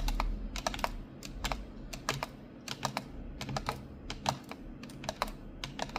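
Typing on a computer keyboard with long natural fingernails: irregular clacking keystrokes, a few a second.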